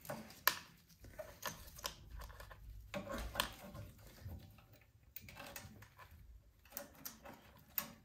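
Scattered light clicks, taps and rustles of hands handling small engine parts and tools, several short sharp ticks a second at irregular spacing.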